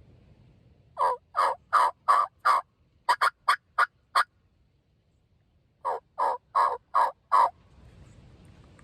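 A hunter's turkey call yelping in three series of about five notes each, the middle series shorter and quicker, calling to a gobbler.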